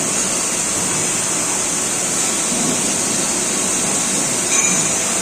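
Steady hiss and hum of running machinery, with a short faint high tone about four and a half seconds in.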